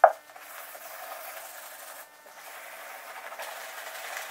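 Hand sanding of a car door panel with an abrasive pad: a steady scratchy rubbing, pausing briefly about two seconds in. A short loud knock comes right at the start.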